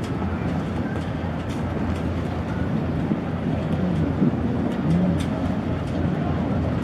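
Steady low drone of motor boat engines as a cabin motor yacht cruises past close by and a jet ski runs alongside, rising a little about four to five seconds in.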